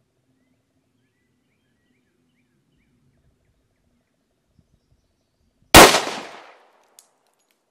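A single pistol shot about three-quarters of the way in: one sharp, loud crack whose echo dies away over most of a second, followed by a faint click.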